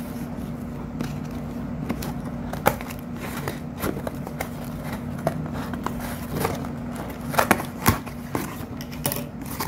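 Scissors cutting through packing tape on a cardboard box and the cardboard flaps being pulled open: a run of sharp snips, crackles and scrapes, with the loudest clicks about three seconds in and again near the end.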